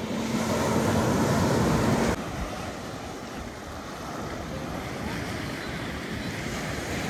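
Small sea waves breaking and washing up onto a sand and pebble beach, with wind on the microphone. The surf is louder in the first two seconds, with a faint steady low hum, then changes abruptly to a quieter, even wash.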